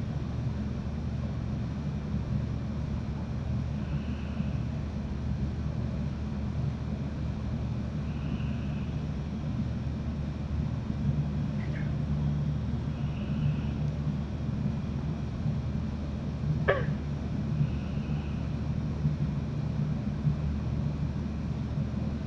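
Night-time marsh ambience: a steady low hum underneath, a soft call repeating about every four to five seconds, and two brief sharp clicks, one near the middle and one about three-quarters in.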